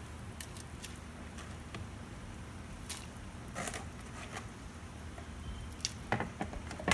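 Wet strips of pickled sour bamboo shoot being handled and dropped into a pot of broth: soft squishing and light splashes, with a few small clicks that grow sharper near the end, over a steady low hum.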